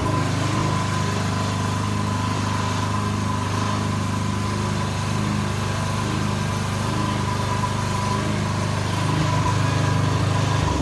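Weed Eater riding mower's engine running steadily just after starting, with a thin steady high whine over it. It gets a little louder near the end.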